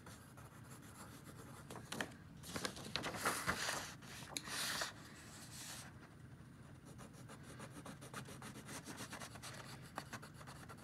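Scribbling on paper while colouring in a shape, with quick back-and-forth scratching strokes. The strokes are louder from about two to five seconds in, then become lighter and more even.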